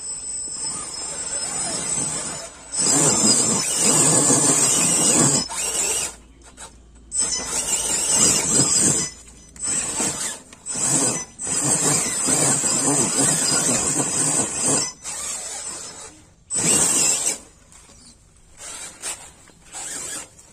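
Electric motor and gearbox of a radio-controlled scale rock crawler whining in repeated throttle bursts of one to three seconds with short pauses between, as it climbs over rock and dirt.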